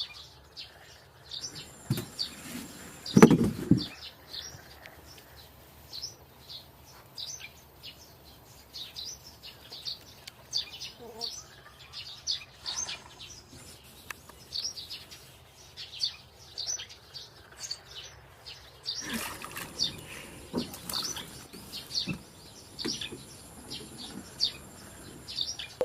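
Small birds chirping over and over, with short high chirps coming in quick succession. A single loud thump about three seconds in and a stretch of rustling noise later on.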